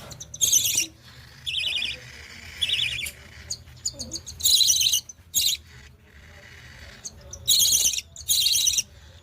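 Budgerigar chicks giving harsh, high-pitched chirping calls in short bursts, about seven in all, with quieter gaps between.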